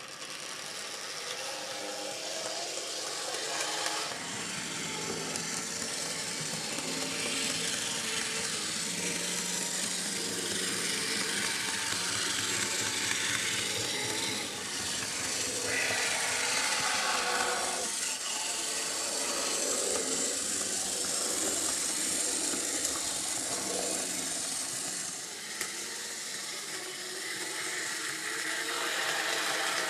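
Old Bachmann PCC motor and gear drive of a 00-scale model tram running along the layout track: a steady mechanical running noise.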